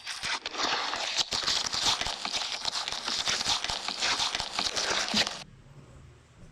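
Slime being squished and worked by hand, giving a dense run of crackling and popping for about five seconds that stops abruptly near the end.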